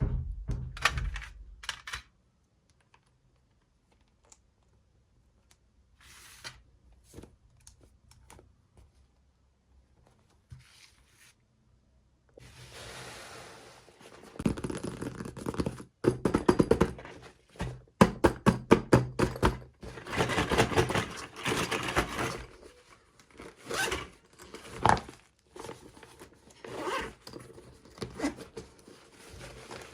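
Hands opening toy packaging: tearing, scraping and knocking of plastic and cardboard, sparse at first, then busy, with a quick run of ripping clicks about two-thirds of the way through.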